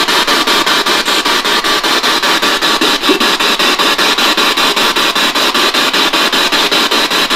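Spirit box radio sweeping through stations: loud static chopped into a rapid even pulse, about five or six beats a second.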